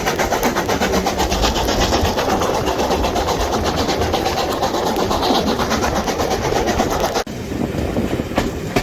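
Heritage train running along the line, heard from aboard: a loud steady rumble and rattle of wheels on rail. About seven seconds in the noise drops suddenly, and single clicks of wheels over rail joints stand out.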